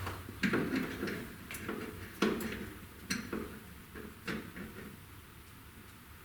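Small metal parts and tools being handled: about half a dozen light clinks and knocks, scattered and irregular, stopping after about four and a half seconds.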